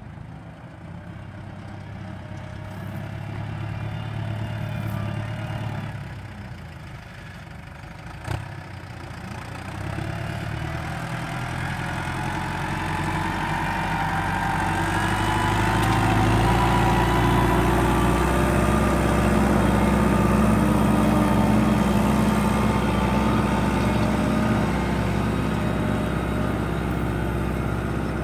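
Mercedes-Benz MB-trac 900 turbo's turbocharged six-cylinder diesel running under load while pulling a tine cultivator through stubble. It grows much louder from about ten seconds in as the tractor comes close, then eases off near the end. There is one short sharp click about eight seconds in.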